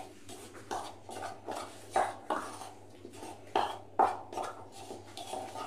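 A metal spoon stirring dry gram flour and spices in a bowl: irregular scrapes and light clinks of the spoon against the bowl.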